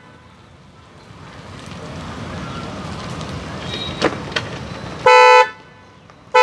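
Roots Windtone 90 trumpet car horn pair, high and low tone sounding together, gives one short, loud blast of about half a second about five seconds in. Two sharp clicks come shortly before it.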